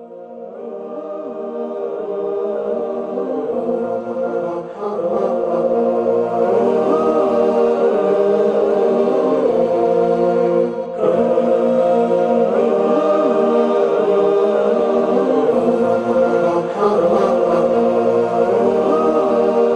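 Closing theme music: voices chanting in chorus, fading in over the first few seconds and then steady, with a brief break about eleven seconds in.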